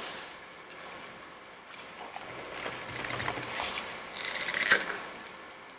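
Metal screw lid being twisted on a glass jar of pickled okra: a quick run of grinding clicks about four and a half seconds in, the loudest sound, after softer handling noise.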